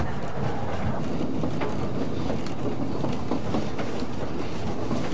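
Narrow gauge train running, heard from on board: a steady rumble of wheels on rail with scattered clicks from the track.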